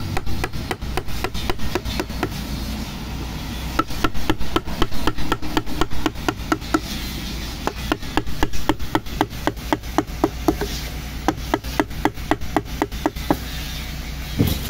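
Mallet striking the wooden handle of a carving chisel as it cuts into a wooden board: a quick steady run of sharp knocks, about three a second, easing for a moment a few seconds in.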